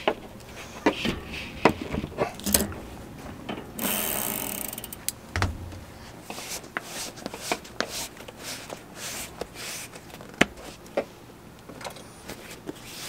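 Scattered sharp metallic clicks and clanks from working on a bicycle rear wheel's sprocket cluster with a chain-whip tool, with a brief ratcheting buzz about four seconds in.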